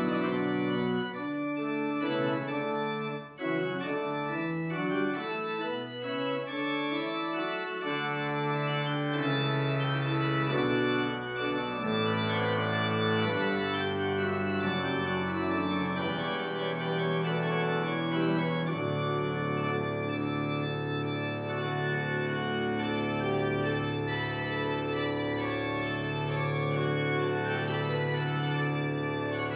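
Church organ played solo: chords moving quickly at first, low pedal notes coming in about eight seconds in, then full chords held long through the second half.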